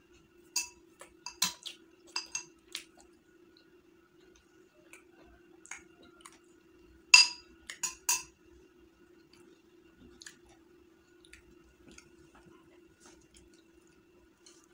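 Sharp, briefly ringing clinks of dishware as biryani is eaten by hand from a ceramic plate, with a glass bowl of curry beside it. A cluster of clinks comes in the first three seconds and a louder one about seven to eight seconds in. A faint steady hum runs underneath.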